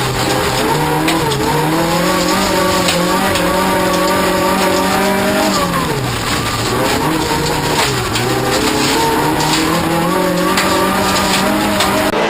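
Offroad racing car's engine running hard at high revs. The revs drop for about a second near the middle, then climb again. Sharp clicks are scattered through it, over a steady hiss of noise.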